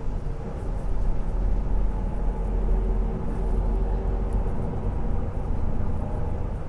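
Inside a bus cabin: a steady low rumble from the running engine, with a faint steady hum above it.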